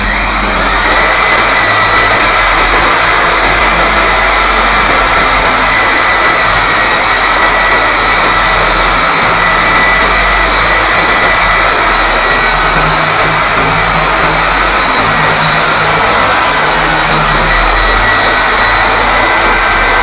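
DongCheng DZZ190 electric core drill starting up and running steadily under load as its core bit cuts into a concrete ceiling: a loud, even motor noise with a high whine.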